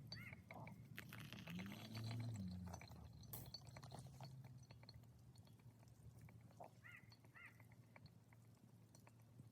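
Faint crackling and ticking of a small wood fire in a Sierra stove over a low steady hum, with a bird calling briefly near the start and twice about two seconds before the end.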